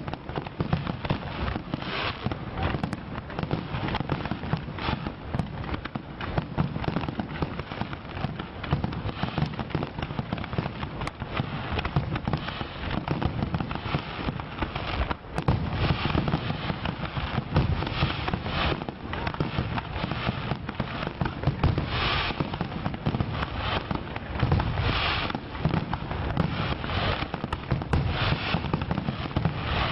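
Fireworks display: a dense, unbroken run of bangs and crackling, with several heavier bursts in the second half.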